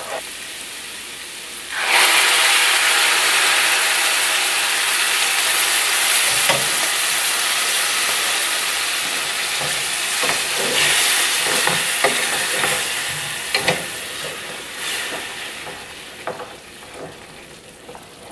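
Warm chicken broth ladled onto hot rice and mushrooms in a stainless steel skillet, setting off a loud sizzle that starts suddenly about two seconds in, swells again around eleven seconds and dies down near the end. A wooden spoon stirs and taps against the pan throughout.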